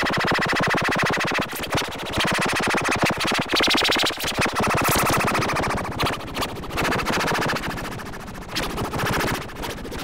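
Emergency-alert alarm tone: a loud, harsh synthesized buzz pulsing very rapidly, shifting in pitch and briefly breaking off several times.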